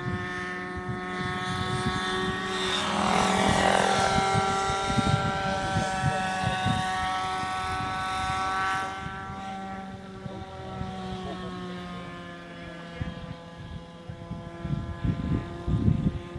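Motor and propeller of a Robbe Skywind RC sailplane droning overhead under power: a steady tone whose pitch sags slightly about ten seconds in and then levels off, loudest in the first half, with irregular low rumbling underneath.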